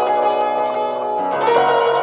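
Background instrumental music with ringing, sustained notes; a new chord comes in a little past halfway through.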